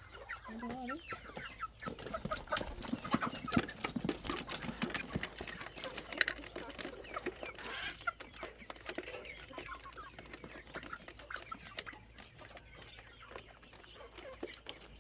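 Chickens clucking, with many short sharp clicks that are busiest in the first half and thin out later.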